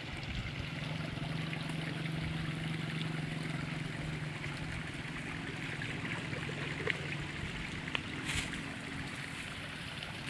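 Steady rush of water trickling in an irrigation channel, with a low engine hum from a distant motor underneath and a few light clicks in the second half.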